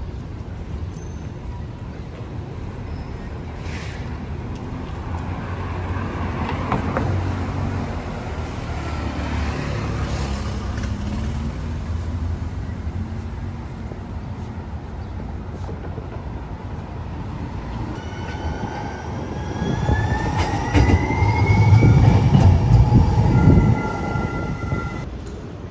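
Street traffic with a heavy vehicle rumbling past, loudest near the end. As it passes, a whine rises in pitch, and several steady high tones sound for the last few seconds.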